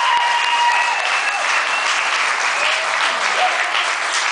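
Audience applauding and cheering, with a few held whoops in the first second.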